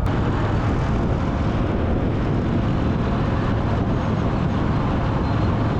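Harley-Davidson Dyna V-twin motorcycle running on the road, a steady engine and road noise with wind on the microphone.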